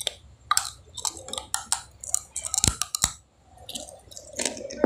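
A person biting and chewing food close to the microphone: a quick run of sharp mouth clicks and crunches, with two heavier knocks around the middle.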